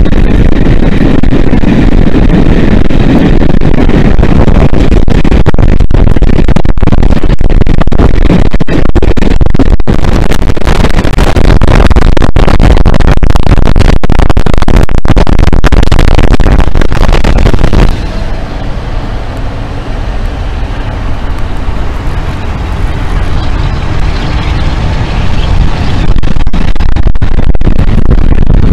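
Class 47 diesel locomotives' Sulzer twelve-cylinder engines working hard up front, heard from an open coach window with heavy wind rush on the microphone. The noise drops sharply about two-thirds of the way through and comes back up near the end.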